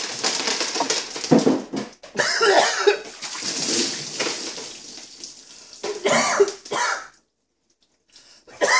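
Water poured from a jug and then a bucket over a seated man's head, splashing down over him in two pours, with the man gasping and coughing from the drenching near the end.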